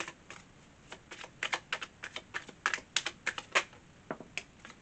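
A deck of tarot cards being shuffled overhand: an irregular run of quick, light card clicks and slaps.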